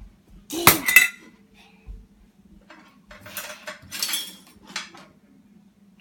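Dishes and metal cutlery clattering and clinking as they are taken out of a dishwasher and dropped into a utensil drawer: a loud clatter about half a second in, then a longer run of clinks around the middle.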